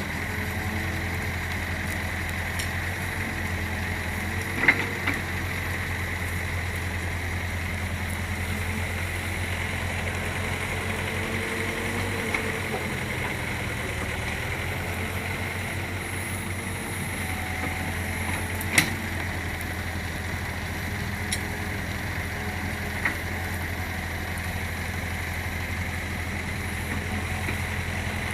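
Diesel engine running steadily at a low, even speed, with a few sharp knocks, the loudest about five and nineteen seconds in.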